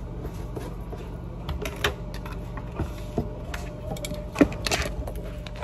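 Scattered clicks and knocks of kitchen utensils being handled on a counter, the loudest a sharp knock about four and a half seconds in, over a steady low hum.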